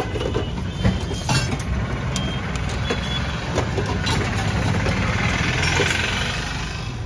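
Steady vehicle engine and road traffic noise, a low rumble with a few short clicks and knocks.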